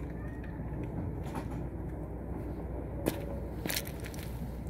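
Tram running, a steady low rumble with a few sharp clicks and creaks about three seconds in.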